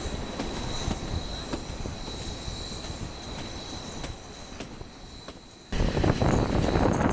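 Narrow-gauge train's wheels squealing against the rails on a tight curve, a steady high squeal with occasional clicks from the track. About six seconds in, loud rushing wind noise on the microphone suddenly takes over.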